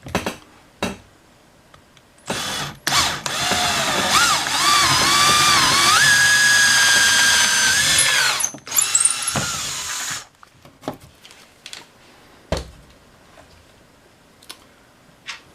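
Power drill boring a hole through a cabinet door for a knob's bolt: a short burst, then about six seconds of running whose whine dips and rises as the bit cuts, and another brief burst. Scattered clicks and knocks follow.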